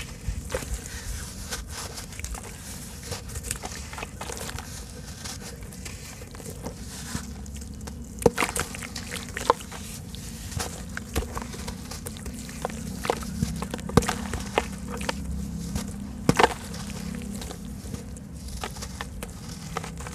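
Soft sand-cement chunks being crushed and crumbled by hand, a gritty crunching with many small sharp cracks throughout and crumbs falling into water. The loudest cracks come about 8, 14 and 16 seconds in.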